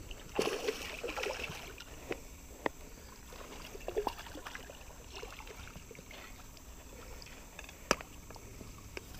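A hooked bass thrashing and splashing at the water's surface as it is brought to the net. Several short knocks and clicks of gear on the boat come through it, with one sharp knock about eight seconds in.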